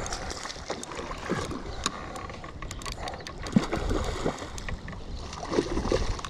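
Steady rushing wash of water pouring through a dam spillway, with a low rumble and a few short clicks over it.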